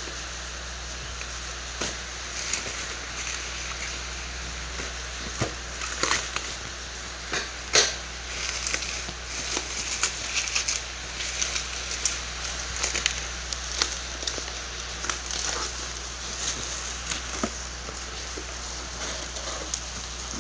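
Bubble wrap and plastic packaging crinkling and crackling as it is pulled off by hand, in irregular sharp crackles, the loudest about eight seconds in.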